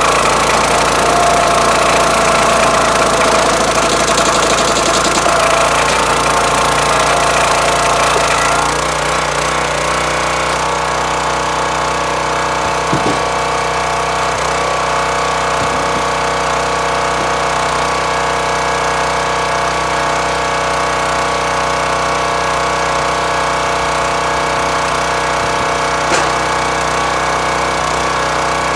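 Hydraulic log splitter's engine running steadily, working harder for the first eight or nine seconds as the ram drives an ash round through the four-way wedge, then easing back to a steady run once the valve lever is released. A few light knocks of split wood being handled.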